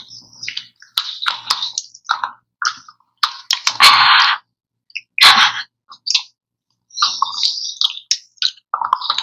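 Close-miked eating sounds from someone eating ice cream: short bursts of wet chewing and mouth noise with sharp clicks, broken by brief silent gaps. The two loudest bursts come near the middle.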